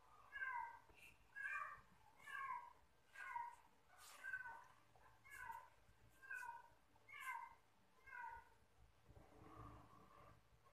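An animal calling over and over, nine short pitched calls about one a second, each dipping in pitch. The calls stop about nine seconds in.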